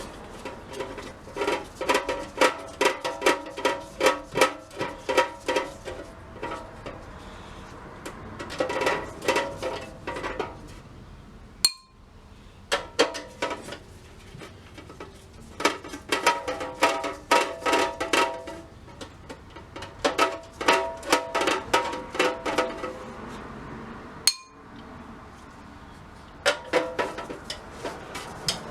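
Runs of rapid metallic clicking, several clicks a second for a few seconds at a time with pauses between, as a ratchet wrench turns the fasteners holding the feet on the metal gumball machine. The clicks ring on the metal body.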